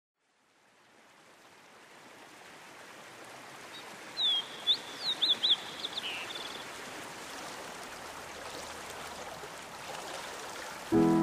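Rushing stream water, a steady hiss that fades in from silence over the first couple of seconds. A small bird gives a quick run of high, sharp chirps about four to six seconds in.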